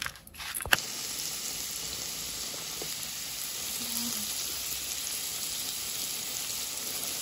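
Hot oil sizzling over chili flakes and sesame seeds in a steel bowl while a spoon stirs them. There is a sharp click about a second in, and the sizzle runs steady from there on.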